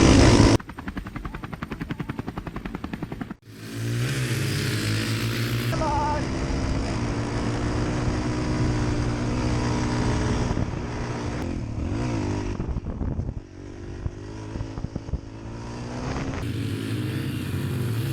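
Yamaha TT-R125 dirt bikes' small single-cylinder four-stroke engines revving and accelerating hard, the engine note climbing in pitch and dropping back as they pull away, in several abrupt cuts.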